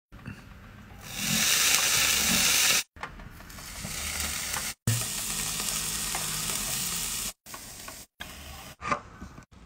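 Food sizzling on a hot electric grill grate: a loud hiss for the first few seconds, then quieter steady sizzling, chopped into several short pieces by abrupt cuts.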